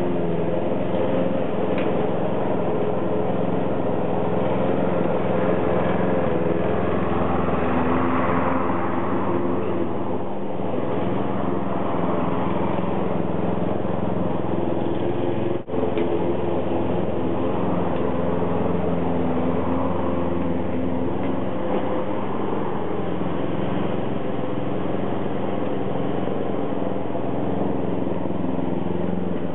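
Lawn mower engine running steadily as a radio-controlled mower drives over the grass. The sound cuts out for a split second about halfway through.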